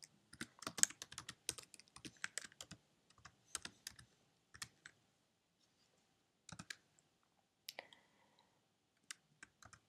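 Faint typing on a computer keyboard: a quick run of keystrokes over the first few seconds, then slower, scattered taps with short pauses between them.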